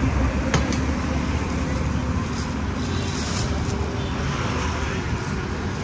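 Steady road traffic noise from a busy street, with a sharp click about half a second in and a brief crinkle of a foil packet being handled around three seconds in.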